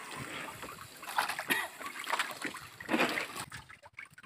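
Irregular splashing and dripping of water as a wet fishing net and its catch are worked in the bottom of a boat, a few separate splashes among steady trickling.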